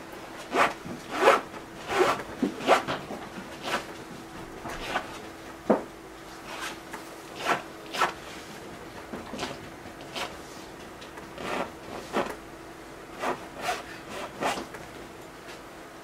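Paint being worked onto a stretched canvas: short scraping strokes, about fifteen at uneven intervals, over a faint steady hum.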